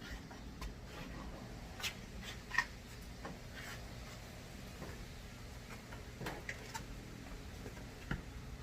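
Scattered light clicks, taps and rubbing of small parts and tools being handled during a car seat install, with a sharper tap about two and a half seconds in and another near the end, over a faint steady hum.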